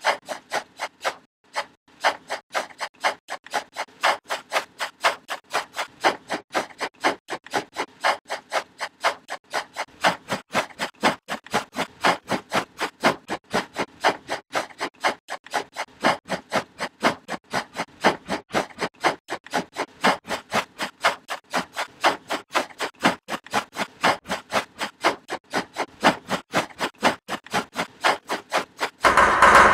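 Pencil hatching on drawing paper: short, even scratching strokes, about three a second, in a steady rhythm.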